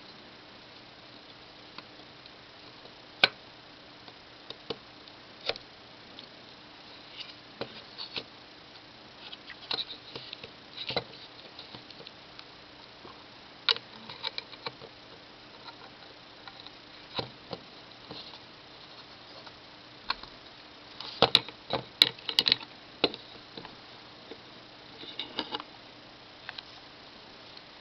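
Irregular small clicks and taps, with a quick cluster of them about 21 seconds in, over a faint steady hum.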